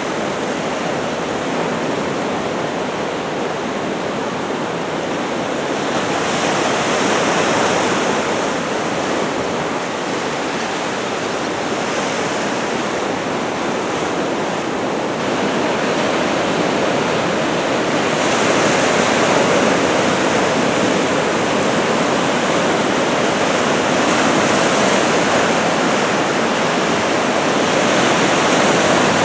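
Ocean surf crashing at the shore, a continuous rushing noise that swells louder several times as sets of waves break. The large waves are typhoon swell.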